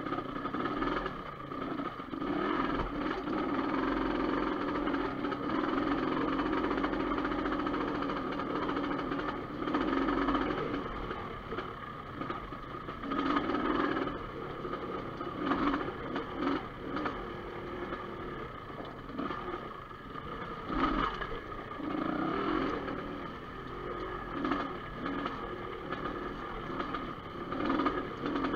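Dirt bike engine running at a steady throttle for the first several seconds, then going on and off the throttle in short bursts. Occasional sharp knocks come in as the bike rides over loose rock.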